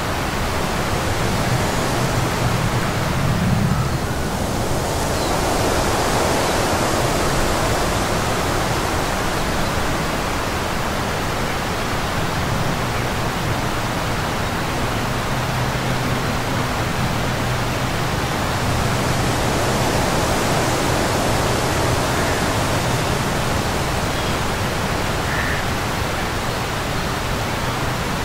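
A steady rushing noise that swells and eases slowly, with a faint low hum underneath.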